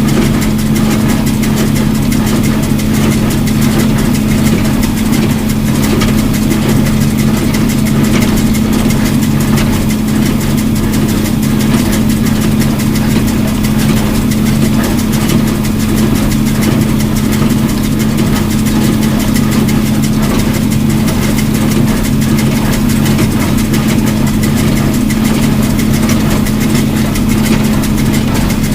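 John Deere 4230 tractor's six-cylinder diesel running steadily at working throttle, driving a Case IH 8545 small square baler as it bales hay.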